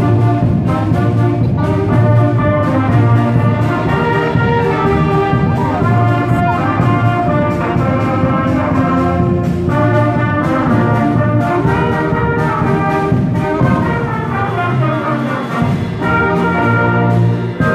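Children's concert band playing a medley of Australian songs: trumpets, saxophones and clarinets in full ensemble over regular drum beats.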